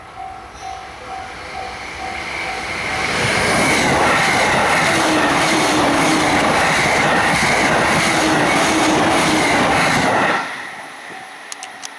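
A level-crossing warning bell dings in a steady pulse. Then a JR Joban Line train passes the crossing at high speed, its wheels clattering over the rails for about seven seconds before the sound cuts off suddenly as the train clears. The crossing bell is heard again near the end.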